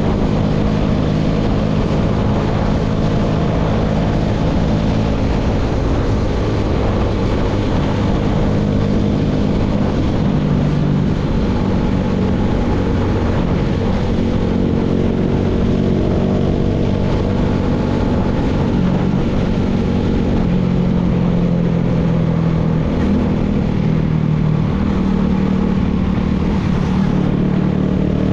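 Engine of a baler outfit running steadily, its pitch rising and falling slightly.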